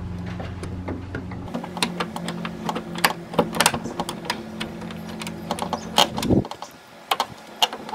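Small metal clicks and rattles of a hood-strut bracket and its bolt being handled and fitted by hand at the hood hinge, over a steady low hum that stops about six and a half seconds in.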